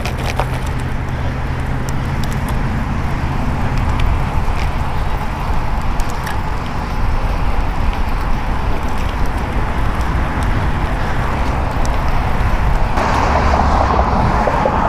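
Steady wind rumble on the helmet camera's microphone while riding a bicycle, mixed with tyre and road noise, growing a little louder and brighter near the end.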